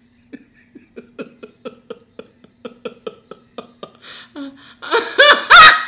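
A man chugging sparkling water in quick gulps, about three a second, then a loud voiced burp-like groan and a sharp heavy thump as his head hits a garage door, near the end.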